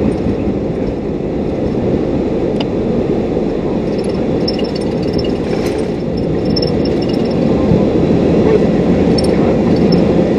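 Airbus A330 heard from the flight deck during the takeoff roll and lift-off: a loud, steady low rumble of the engines at takeoff thrust and the wheels on the runway, growing slightly louder in the later part.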